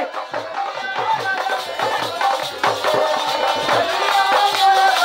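Live folk music for dancing: a fast, steady drum beat of about four strokes a second, with held melody notes over it.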